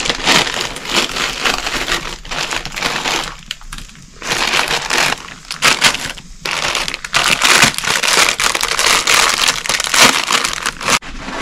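Plastic instant-noodle packets crinkling as they are handled and torn open by hand, in a run of loud crackly bursts with two short pauses.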